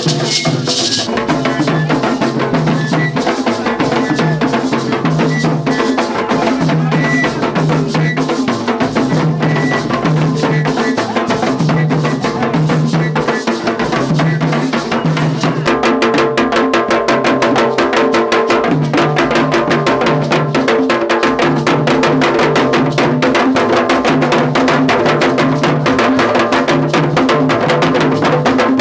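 Music led by drums and percussion, playing a fast, dense, steady rhythm over a repeating low bass figure. About halfway through the sound fills out and gets a little louder.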